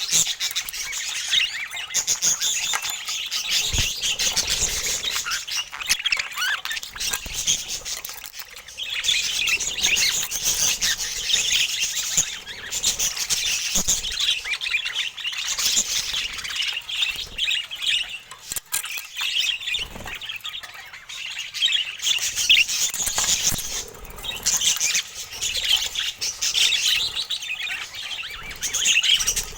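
A flock of budgerigars chattering continuously, with rapid warbling chirps and squawks overlapping, and a few short lulls.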